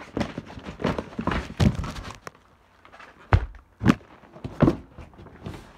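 A heavy boxed firework cake being handled: cardboard rustling and knocks, then three dull, heavy thumps about half a second apart.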